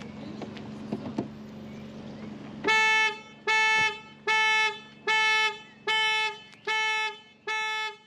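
Skoda Enyaq Coupe iV's factory alarm sounding the car's ordinary horn in seven short, evenly spaced blasts, a little faster than one a second. The alarm has been tripped by a door being opened while the car was locked and armed.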